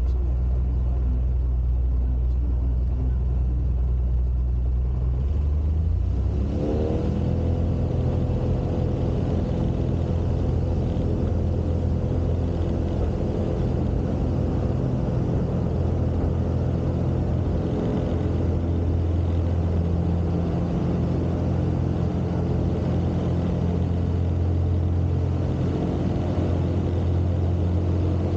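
Jabiru 3300 six-cylinder aircraft engine and propeller of a Zenith 601XL, heard from inside the cockpit: running low and steady, then about six seconds in the throttle opens and the pitch climbs to full takeoff power, held steady through the takeoff roll.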